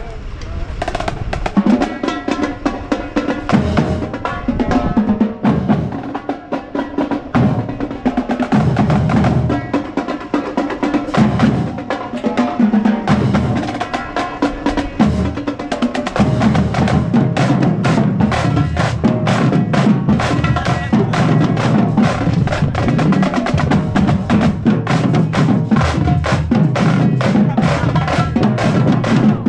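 Marching band drumline playing a cadence: rapid snare drum strokes over bass drums, with the low drums playing more densely from about sixteen seconds in.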